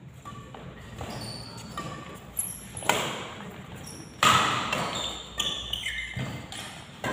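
Badminton rackets striking the shuttlecock in a fast doubles rally: about six sharp hits, the loudest, a hard smash, about four seconds in. Shoes squeak on the court floor between the hits, and the hall makes it all echo.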